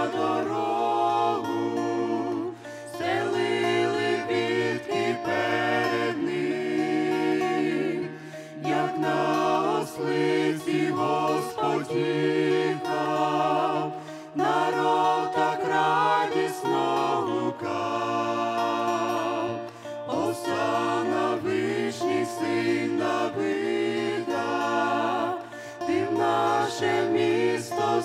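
Mixed group of men and women singing a Ukrainian Christian hymn together in harmony through microphones, with a steady instrumental accompaniment beneath the voices.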